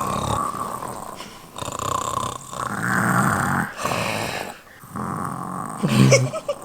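Pretend snoring: a toddler's fake snores, copying her parents, in several rasping, breathy snorts of about a second each with short pauses between them.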